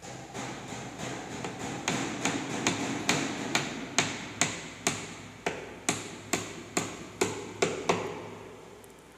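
Hammer driving nails into the edge of a phenolic plywood panel: a steady run of sharp blows, about two a second, light at first and then harder, stopping about 8 seconds in.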